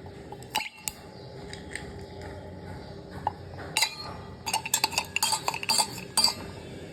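Metal spoon clinking against a ceramic coffee mug: a few single clinks, then a quick run of clinks for nearly two seconds near the end, over a faint steady hum.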